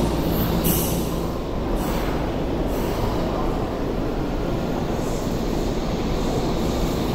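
Underground station noise from an electric commuter train, a Tokyu local. Its running noise and wheel noise build and brighten from about five seconds in as it pulls into the platform.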